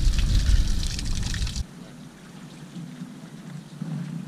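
A stream of water splashing into a mesh fish weigh bag held open, with a low rumble under it; it cuts off suddenly about a second and a half in, leaving quieter background with faint voices.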